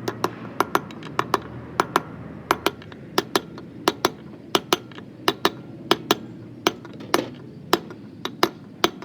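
Hammer striking metal in a steady run of sharp taps, mostly in quick pairs, the typical sound of tapping parts in or out during a gearbox rebuild.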